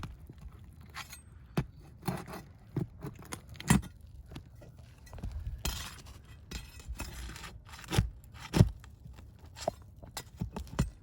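Scraping and sharp knocks of a metal tool working under brittle Atlas Chalet asphalt shingles to pull roofing nails, with short scraping stretches between irregular strikes.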